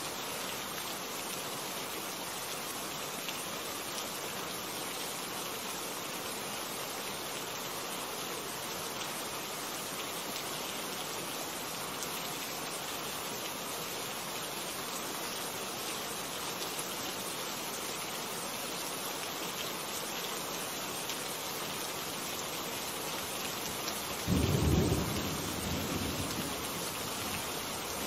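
Steady rain falling, with a sudden clap of thunder near the end that rumbles low and fades away over about three seconds.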